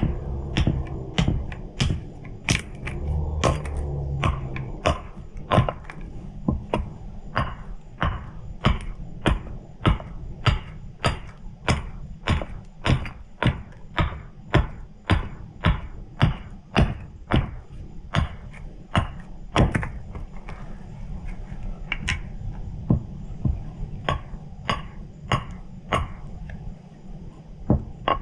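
Hatchet chopping into a hardwood spoon blank, a steady run of sharp blows about two a second.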